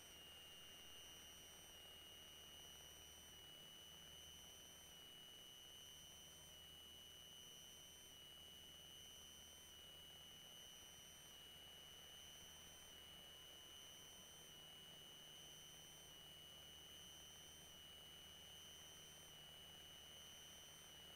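Near silence with a faint, steady high-pitched electronic whine over a low hiss.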